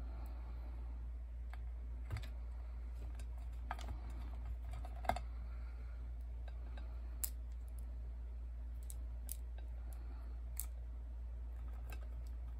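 Scattered light clicks and taps of small plastic dolls being picked up and set down on a metal tray, the sharpest about five seconds in, over a steady low hum.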